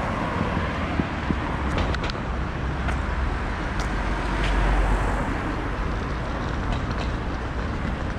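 Street traffic: vehicle engines and tyres on the road, with a low rumble that swells about halfway through.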